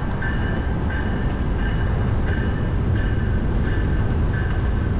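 Wind rush and road rumble on the microphone of a moving bicycle, with a thin high whine that keeps breaking off and coming back.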